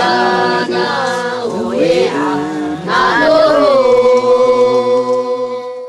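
A group of voices singing unaccompanied in harmony, likely Bunun, with several parts moving together. About three seconds in a new phrase starts and settles into a long held chord, which cuts off abruptly at the end.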